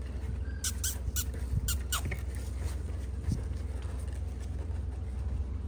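Two-week-old puppies squeaking faintly, with a cluster of light scratches and taps from about half a second to two seconds in as they shuffle on the backdrop, over a steady low hum.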